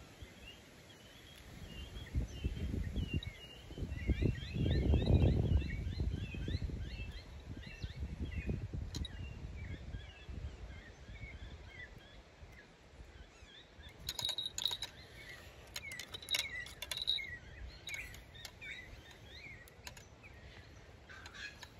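Small birds chirping and twittering repeatedly, with a low rumble on the microphone about four to seven seconds in. In the second half a run of sharp clicks comes with a thin high note.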